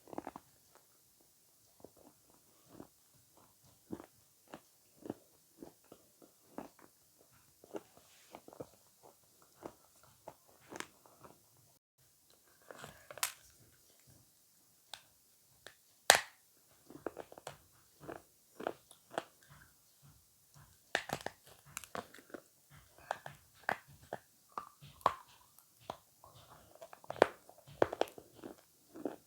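Close-miked eating of avocado: bites and chewing heard as short, separate clicks and smacks. A sharp, loud bite comes about sixteen seconds in, and the chewing grows quicker and busier in the last third.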